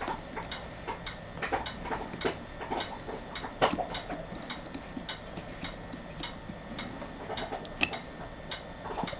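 Light plastic clicking, about three clicks a second, uneven in strength, as the ridged knob is pushed onto and turned on the rotary control switch of an electric blanket control unit.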